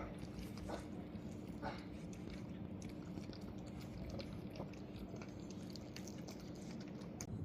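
A cat chewing its food, with irregular small crunches and clicks over a steady low hum.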